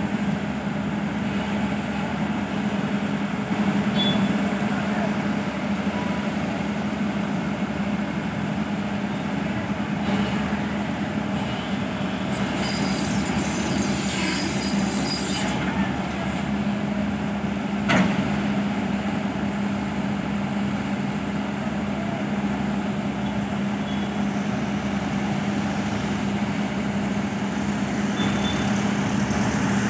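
Diesel engines of heavy construction machinery running steadily, with a constant low hum. A high hiss lasts a few seconds near the middle, and a single sharp knock comes about eighteen seconds in.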